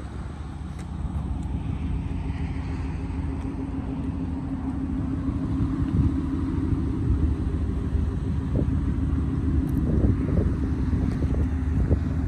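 Shelby Super Snake F-150 pickup's supercharged 5.0-litre V8 idling, a steady low rumble.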